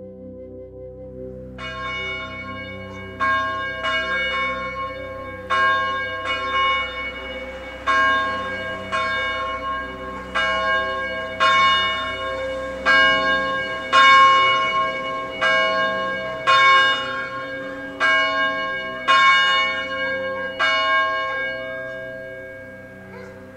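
A church bell tolling, struck roughly once every second and a bit, each stroke ringing on, over a soft ambient music bed of steady held tones. The strokes begin about two seconds in and stop near the end.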